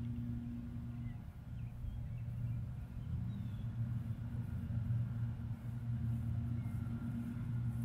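Steady engine hum of lawn mowers, a low drone with several pitched notes. One note drops away about a second in and climbs back up a couple of seconds later.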